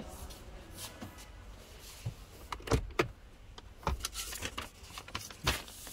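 A car's glove box being opened and searched for papers: a handful of short clicks and knocks from the latch, lid and handling, spread a second or so apart.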